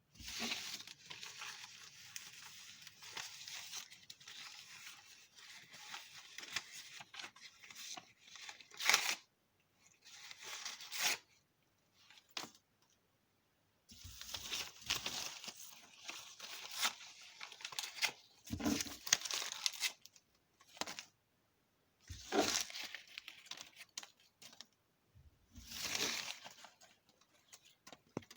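Sheets of paper being torn and crumpled by hand, in several bouts of crackling and ripping with short pauses between them and a few sharper, louder rips.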